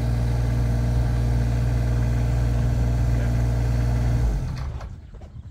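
Kubota KX41-3V mini excavator's diesel engine running steadily at idle, then shut off a little over four seconds in, dying away within about half a second.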